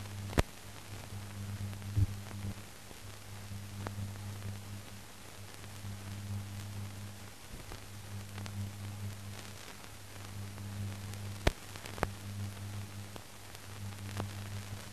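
Old newsreel soundtrack with no programme sound: a steady hiss under a low electrical hum, broken by several sharp clicks and pops.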